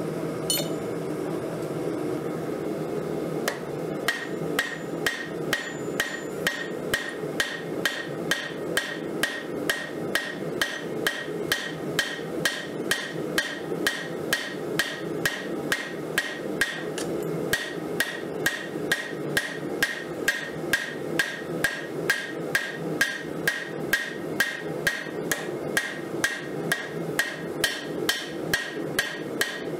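Forging hammer striking a red-hot 1080 high-carbon steel railroad-spike knife blade on an anvil, blows starting a few seconds in and then coming steadily about twice a second, each with a short metallic ring.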